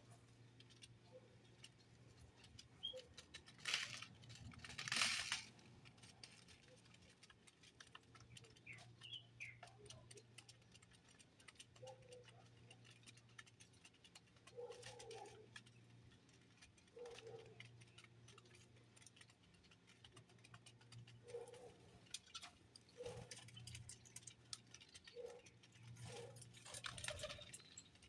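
Birds at a feeding spot: short, scattered calls with many faint clicks of pecking, and a couple of louder rustling bursts, over a steady low hum.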